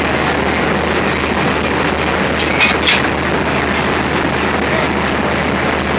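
Diesel locomotive engine idling with a steady low drone and a loud noisy rumble, heard at close range by the coupling. Two sharp knocks come a little less than halfway through as the brake hoses between locomotive and coach are handled.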